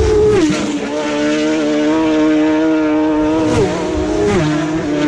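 Racing car engine running at high revs, a steady high-pitched note that drops sharply in pitch a few times.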